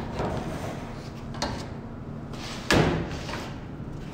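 A sharp knock about two and a half seconds in, with a short fading ring, and a fainter knock a little earlier.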